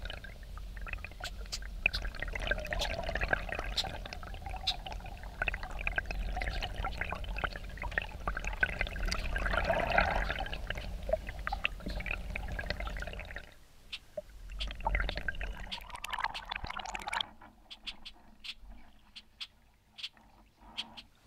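Water gurgling and bubbling around a camera mounted below a canoe's waterline as the canoe is paddled, full of small bubbly clicks over a low rumble. It drops away about 13 seconds in, swells briefly again, then goes much quieter near the end, with only scattered clicks.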